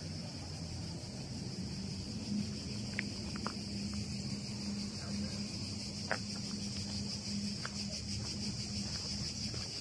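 Cicadas chirring steadily in the trees, a high, continuous, finely pulsing buzz. A low steady hum lies underneath, and a few brief high clicks come about three, six and seven and a half seconds in.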